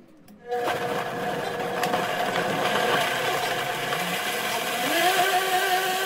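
Countertop blender motor starting about half a second in and puréeing halved tomatoes, garlic, chipotle peppers in adobo and water into a sauce. It runs loud and steady, with a lower tone that climbs in pitch about four seconds in.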